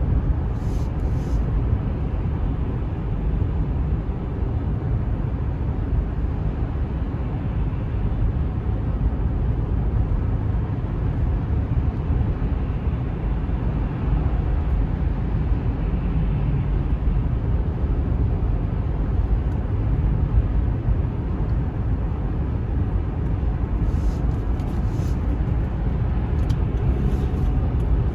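Steady low rumble of a car cruising on a highway, tyre and engine noise heard from inside the cabin. A few faint ticks come near the start and again near the end.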